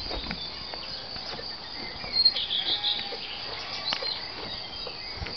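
Crickets chirring steadily, with bird chirps, the loudest a brief burst of chirping a little past two seconds in. Under it, scattered soft crunching clicks of horses munching hay at a wooden hay rack.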